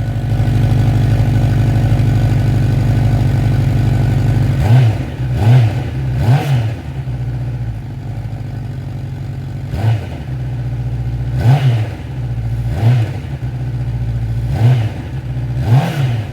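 Honda CB1000F SE's inline-four engine running cold: a steady idle, then from about five seconds in about eight short throttle blips, each rev rising and dropping straight back to idle.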